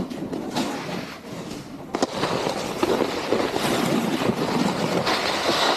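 Snowboard base and edges sliding and scraping over hard-packed snow, with wind on the microphone. It gets louder about two seconds in, where there is a sharp knock.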